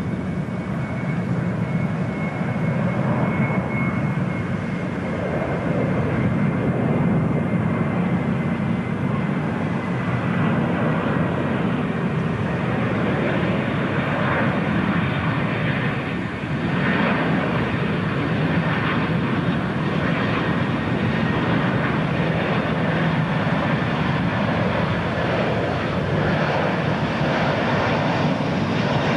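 McDonnell Douglas DC-10 on approach with its landing gear down, its three jet engines giving a steady rumble. A thin whine on top slowly falls in pitch.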